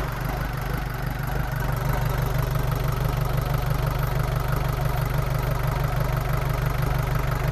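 Iveco Daily camper engine idling steadily just after starting, running on its newly fitted timing belt.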